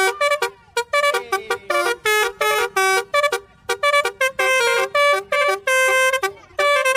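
Basuri telolet multi-tone bus horn playing a quick tune: a string of short, bright honked notes stepping up and down in pitch, several a second.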